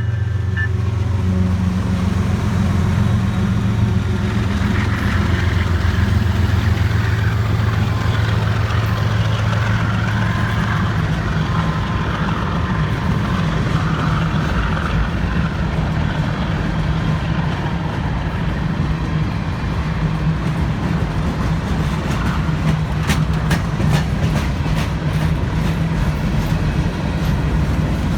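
CSX freight train passing close by, just after its horn stops: the diesel locomotives drone low and steady for the first ten seconds or so. The rolling cars follow, with a cluster of sharp clicks late on.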